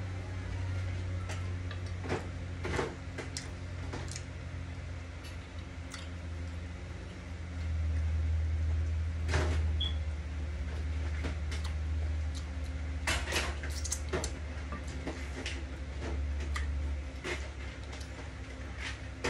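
Quiet eating sounds: scattered light clicks and taps of food, fingers and a fork on plates, a cluster of them about 13 seconds in, over a steady low hum.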